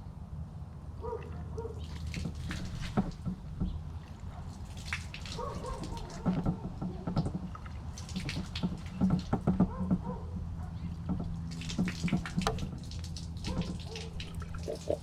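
Water splashing and dripping, with irregular clatters, as water and baking soda are worked through the tubes of a 1968 VW Bus front beam to neutralize naval jelly residue. A steady low hum runs underneath.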